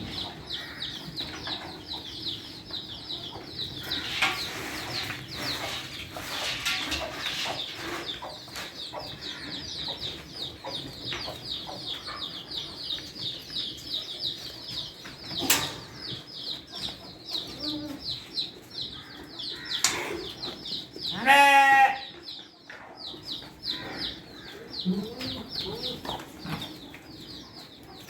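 A goat bleats once, loudly, about three-quarters of the way through, over continuous rapid high-pitched chirping, with a few short farmyard calls from chickens after it.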